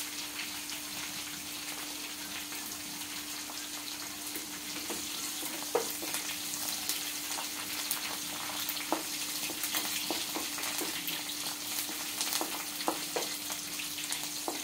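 Onions, green chillies, fenugreek leaves and curry leaves sizzling in hot oil in a pan, with the spatula scraping and tapping against the pan as they are stirred, the taps more frequent after about five seconds. A steady low hum runs underneath.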